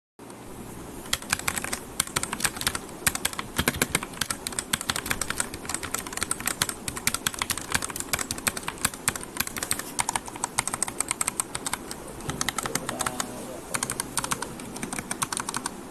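Fast, continuous typing on a Royal Kludge RK61 60% mechanical keyboard: a dense run of irregular key clicks and clacks, starting about a second in.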